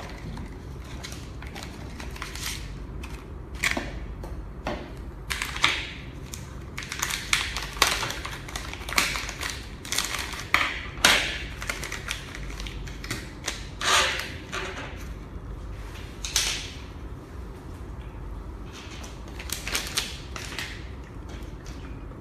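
Packaging being handled as a circuit board and its cables are unpacked: a cardboard box and a crinkly plastic anti-static bag rustle and crackle in irregular bursts, with small clicks. The crackling is busiest through the middle stretch and thins out near the end.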